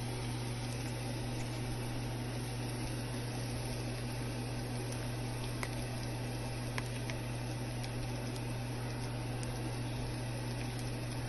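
Minced garlic sizzling in hot oil in a frying pan: a steady hiss with scattered small pops, over a steady low hum.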